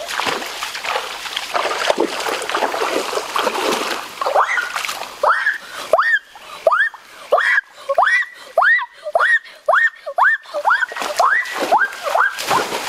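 Water splashing and sloshing as a person wades through a shallow stream. From about halfway in, a string of short high calls that rise and fall back repeats about one and a half times a second over the water noise.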